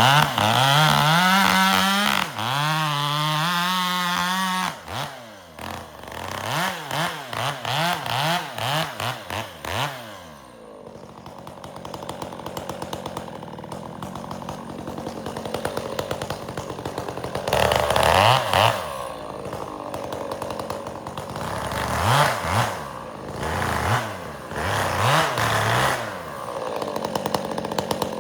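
Chainsaw cutting firewood: it runs at high throttle for the first few seconds, then is revved in a quick string of rises and falls before dropping to idle. Later it is revved again several times.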